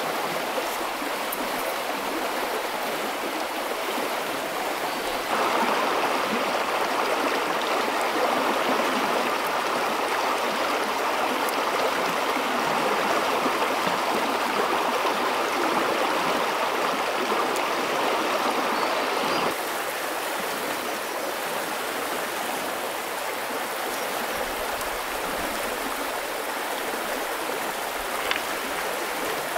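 Shallow rocky stream flowing, a steady rush of water. It grows louder about five seconds in and drops back to its earlier level at about twenty seconds.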